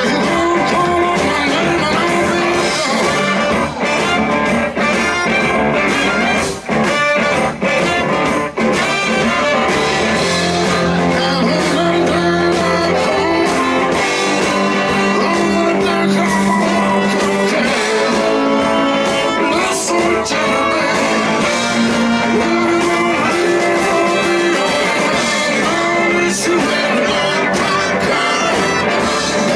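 Live blues-rock band playing, with electric guitar prominent.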